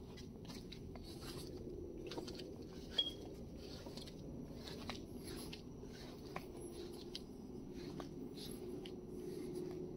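Faint footsteps and scattered light clicks and scrapes over a low steady hum, with one sharper tick about three seconds in.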